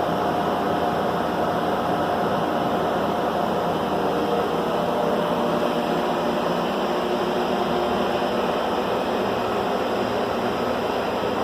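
Air-conditioning unit with a Copeland compressor running steadily: a continuous rushing hum with faint tones that slide slightly lower partway through.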